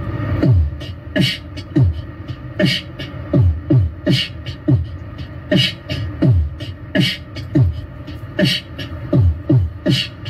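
A beatboxed hip-hop beat: deep kick sounds that drop in pitch, with a sharp snare sound about every second and a half and lighter hi-hat-like clicks between them.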